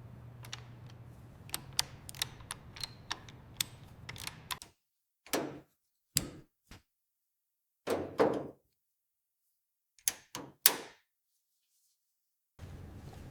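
Metal parts and hand tools being handled: a quick run of sharp clicks and taps, then a few separate knocks and thuds with dead silence between them.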